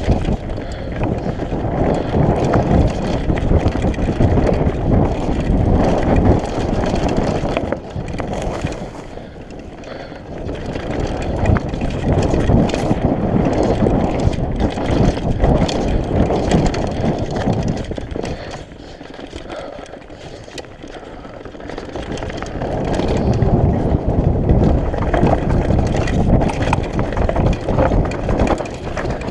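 Mountain bike descending a dirt forest trail: a continuous rush of tyre and wind noise with frequent rattles and knocks from the bike over rough ground. It eases off twice, about a third of the way in and again about two-thirds in, then picks back up.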